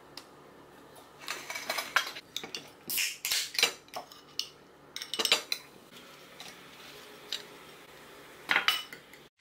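Metal cutlery clinking and scraping against china plates and a glass bowl as food is served, in several short bursts.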